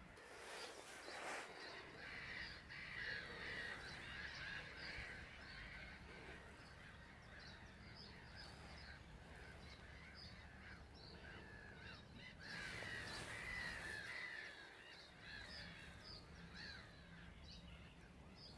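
Faint chorus of many birds calling at once, a dense run of short overlapping chirps and calls.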